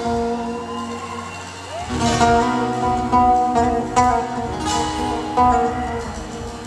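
Pop-rock band playing live at a concert, with guitar prominent over sustained notes and a steady beat.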